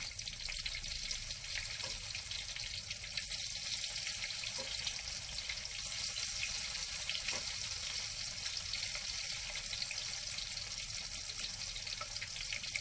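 Battered tofu deep-frying in hot oil in a wok: a steady sizzle with fine crackling. Thin batter is trickled onto the tofu a few seconds in to thicken the crispy coating.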